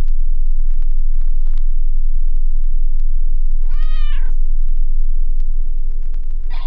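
A loud, steady low hum with scattered crackles runs throughout. About four seconds in, a single cat meow rises and falls in pitch over about half a second.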